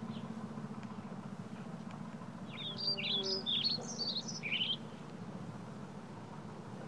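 A songbird sings one quick phrase of rapid high chirps lasting about two seconds, starting a couple of seconds in, over a steady low hum.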